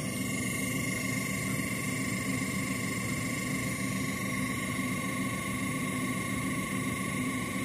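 Homemade synthesizer droning: a steady rough hum with a steady high whistling tone over it.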